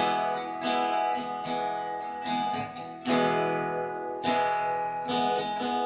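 Acoustic guitar strummed solo, ringing chords with a new strum every second or so; the strongest strums come about three seconds in and again a second later.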